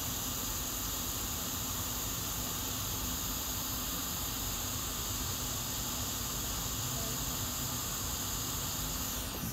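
Hot-air rework station blowing a steady hiss of hot air over the board while reflowing a BGA RAM chip, to re-seat its solder balls. Right at the end its blower pitch slides down as the air winds off.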